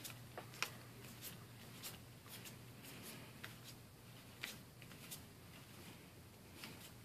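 Yu-Gi-Oh! trading cards being thumbed through one at a time in the hands: a faint, irregular patter of light card clicks over a low steady hum.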